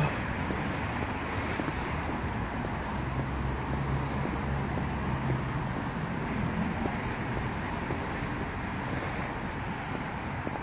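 Steady city road traffic noise heard from a sidewalk, with a low engine hum for a couple of seconds near the middle.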